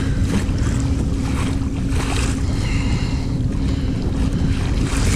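Wind buffeting the microphone and choppy water slapping against a kayak on open water, over a steady low hum.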